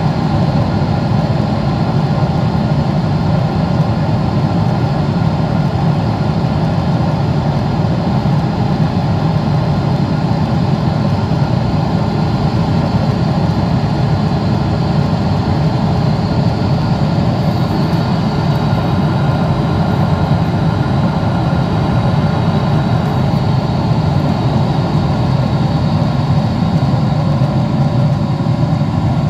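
A steady, loud, low engine rumble that holds the same level throughout, with a few faint steady tones above it.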